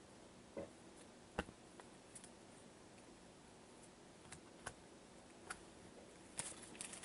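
Near silence with a handful of faint, scattered clicks and taps of small items being handled, the sharpest about one and a half seconds in and a few close together near the end.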